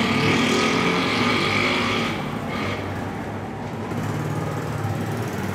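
Sewing machine running with a steady motor hum. The stitching noise is louder for about the first two seconds, then settles to a quieter, even hum.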